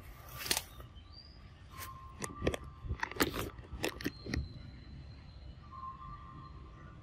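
Outdoor forest ambience with a low steady rumble and a faint steady high-pitched tone. It is broken by a run of sharp clicks and cracks, about eight of them, bunched in the middle few seconds.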